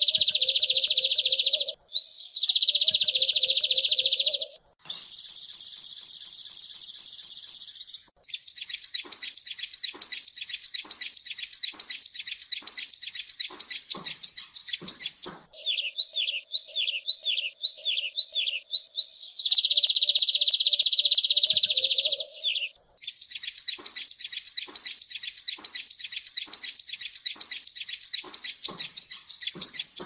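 Van Hasselt's sunbird (kolibri ninja) singing a high, fast song in separate phrases, dense buzzy trills alternating with rapid runs of repeated sharp notes, broken by short pauses.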